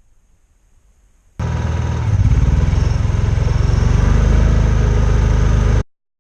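Honda EU6500 inverter generator's engine running. It comes in suddenly about a second and a half in and gets louder about half a second later as it takes up the load of the electric water heater. It cuts off suddenly near the end.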